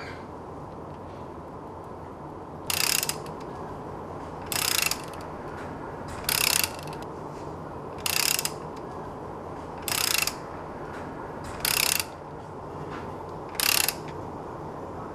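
Ratchet wrench clicking in seven short strokes about two seconds apart as it turns the spindle of an oil-seal mounting tool, drawing the seal into its seat in the engine.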